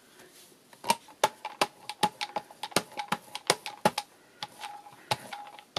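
Rubber brayer being rolled back and forth through gesso on a glass craft mat to load it, giving a quick run of sharp, tacky clicks, several a second.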